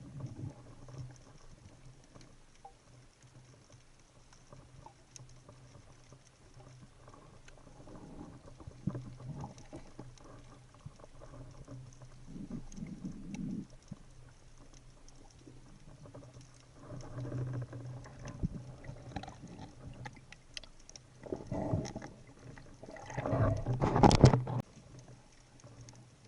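Underwater sea ambience: a steady bed of fine crackling and clicking over a low hum, broken by several louder rushing surges, the loudest a couple of seconds before the end.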